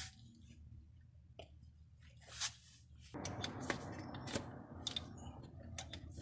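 BMW Z4 rear brake caliper being worked loose by hand: metal scraping and crunching with scattered clicks, starting about three seconds in after a few light clicks.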